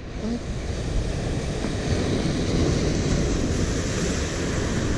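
Sea surf washing against rocks, with wind on the microphone: a steady rushing noise.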